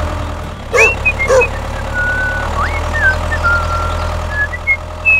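Steady low tractor engine rumble laid under the toy tractor as it drives. About a second in come two short squeaky calls, then a run of high, gliding, whistled chirps.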